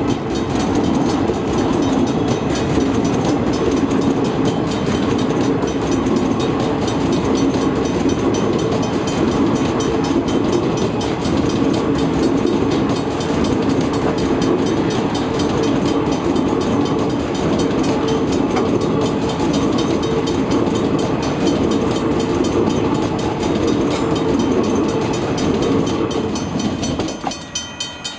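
A train of KiwiRail DL class diesel-electric locomotives running past, a loud steady rumble of engines and wheels on the rails. Near the end it drops away into a regular clicking of wheels over the rails, about three a second.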